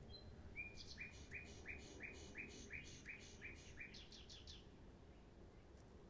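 Nightingale singing one faint phrase: about ten identical notes repeated at roughly three a second, ending in a quick run of faster, higher notes.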